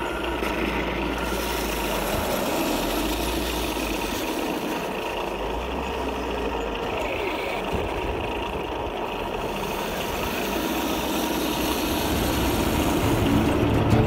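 Radio-controlled model tanks running on gravel, a steady engine-like mechanical drone from the tanks. Music fades in near the end.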